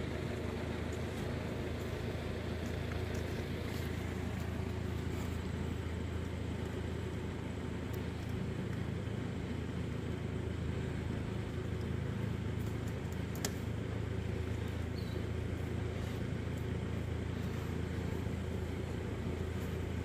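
Steady low hum of a running motor, unchanging throughout, with a few faint sharp clicks.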